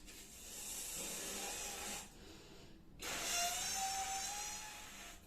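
A condom being blown up like a balloon by mouth: two long hissing blows with a short pause for breath between them, the second with a faint rising whistle.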